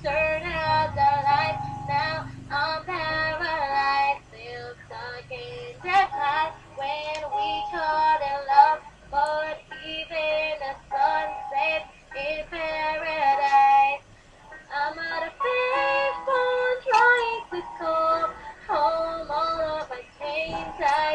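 A solo voice singing a pop melody in short phrases, with faint low backing during the first few seconds.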